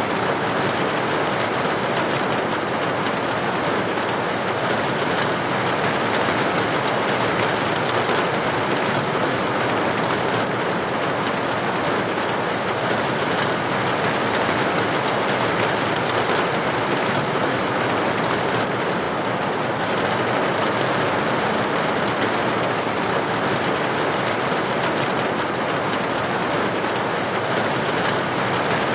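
Steady rain falling and pattering against a window pane, an even hiss with fine scattered drop ticks.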